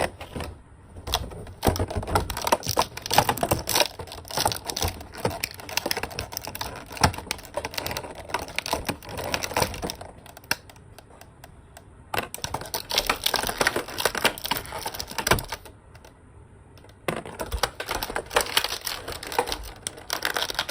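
Plastic toy packaging being handled and pried at to free small accessory hands: a dense run of irregular clicks and crackles, broken by two short pauses.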